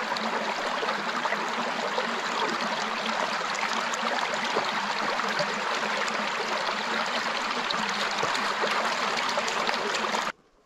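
Shallow rocky upland stream running over stones, a steady babble of water that cuts off suddenly near the end.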